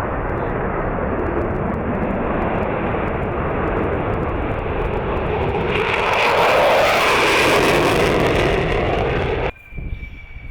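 Fighter jet engine noise, a loud steady rush that builds and grows harsher as the jet comes closer, peaking around seven to eight seconds in. It cuts off suddenly about nine and a half seconds in, leaving a much quieter sound with a faint steady whine.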